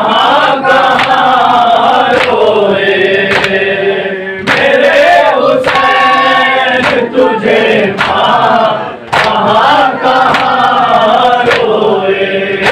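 A group of voices chanting an Urdu noha refrain in unison, mourning Husain. Sharp slaps land about once a second, keeping the beat of the chant, as in matam.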